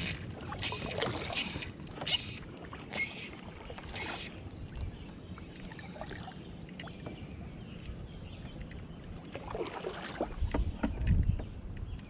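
River water splashing and sloshing in short bursts during the first few seconds, then a quieter running-water haze, with a low wind rumble on the microphone near the end.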